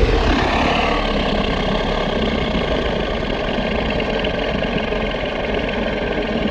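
Movie kaiju sound effect: a loud, rough, rumbling roar held steady for several seconds, then cut off just at the end.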